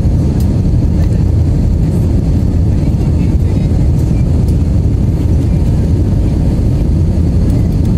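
Steady low rumble inside the passenger cabin of an Airbus A320 in climb: the engines and the airflow over the fuselage, even in level, with a few faint ticks above it.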